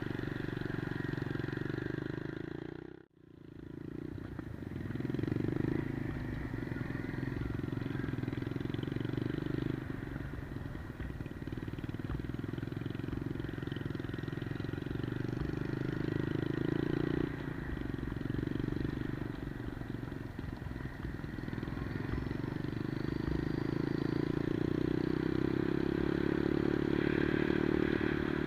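Single-cylinder four-stroke engine of a 110cc Monkey-style minibike running while being ridden, its pitch shifting every several seconds as the throttle changes and rising toward the end. The sound cuts out briefly about three seconds in.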